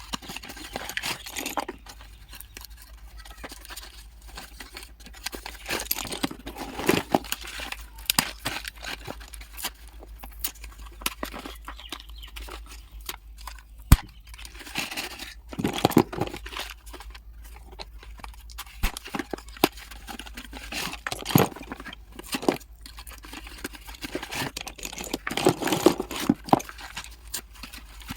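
Packaging being torn open and crinkled, with scattered sharp clicks and knocks from handling the slate pencils. The sounds come in irregular clusters.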